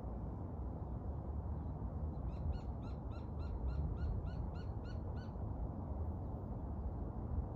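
A bird calling a quick run of about a dozen short, evenly spaced notes, a little under four a second, starting about two seconds in and lasting about three seconds, over a steady low rumble.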